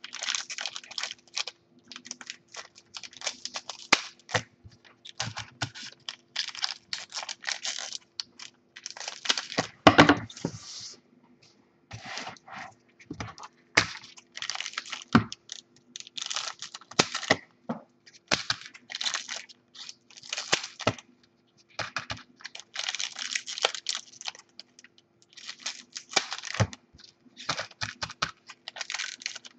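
Trading-card pack wrappers being snipped open with scissors and crinkled, with cards clicking and shuffling as they are handled and stacked, in quick irregular bursts, the loudest about ten seconds in. A faint steady hum sits underneath.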